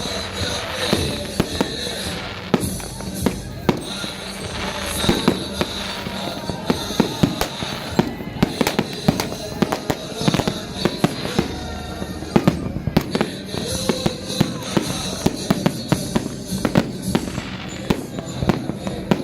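New Year fireworks going off, many sharp bangs and crackles in quick, irregular succession throughout. Music and voices are heard beneath them.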